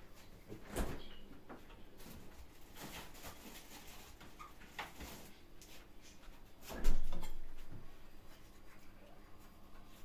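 Kitchen handling noises while food is being prepared: a few faint clicks and two knocks, a lighter one near the start and a louder one about seven seconds in that fades over about a second.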